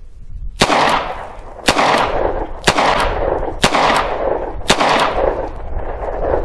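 Five shots from a Smith & Wesson 642 snub-nose .38 Special revolver firing AMMO Inc. ammunition double action, about one a second. Each shot trails off in a long echo.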